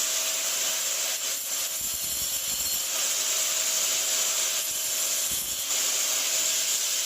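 A handheld power tool running steadily, giving a continuous hissing, grinding noise with a faint steady hum under it.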